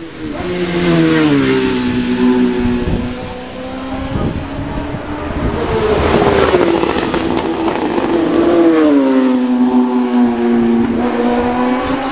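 Racing motorcycle engines at high revs, braking and downshifting into a corner, the pitch dropping in steps several times, then rising again as they accelerate away near the end.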